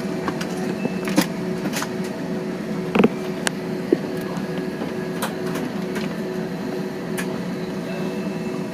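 Airbus A320 cabin noise while taxiing: the steady drone of the jet engines at low power, with scattered light clicks and rattles and a short thump about three seconds in.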